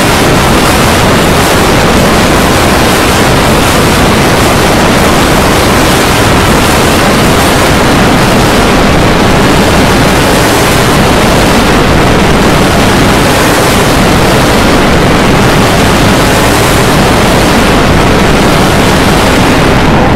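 Very loud, steady wall of noise from hundreds of overlapping video soundtracks played together, blurred so that no single sound stands out.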